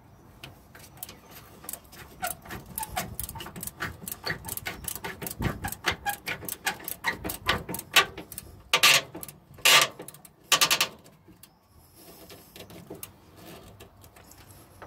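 A hand ratchet clicking in quick short strokes as it tightens the clamp on the lower radiator hose, with three faster runs of clicks about nine to eleven seconds in.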